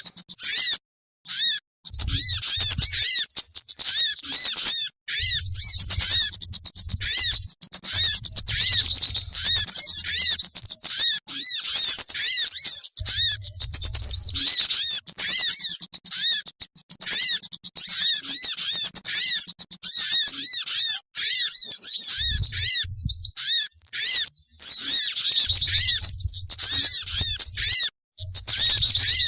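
Bird-trapping lure recording of small wild birds (jingjing batu, sogon, kemade) calling in a dense, rapid, high-pitched chatter of chirps, broken by a few brief silences.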